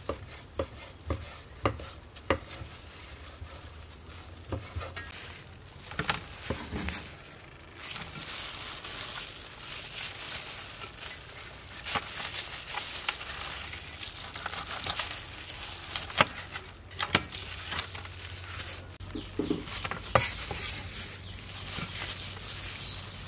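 Cleaver chopping grilled pig head on a wooden cutting board: a run of sharp, irregular knocks in the first several seconds. After that, a steady crackly hiss with occasional knocks as the crisp meat is sliced and handled with plastic-gloved hands.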